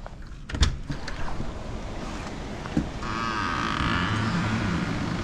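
Clicks of a door latch and handle as the front door is opened, then hurricane wind and rain rushing in, growing louder, with a wavering whistle about three seconds in.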